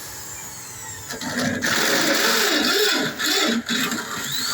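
An electric power tool whirring, loudest from about a second and a half in until about three and a half seconds in, its pitch gliding as it runs.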